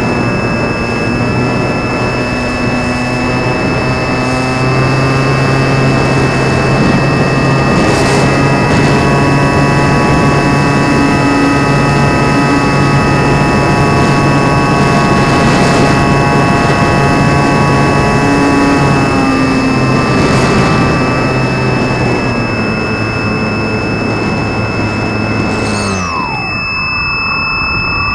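RC airplane's motor and propeller heard through the onboard camera: a steady whine over wind rush. Near the end the pitch drops sharply as the throttle is cut, then climbs again as power comes back.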